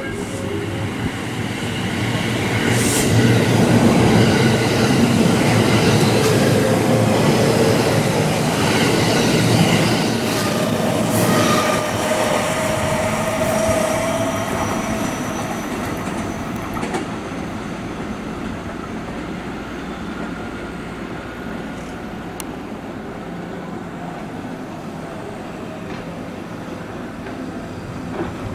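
JR West 223 series 2000 electric train pulling away and passing, with a few sharp clicks and a rising whine partway through. The wheels and running gear are loudest in the first ten seconds, then the sound fades steadily as the train draws away.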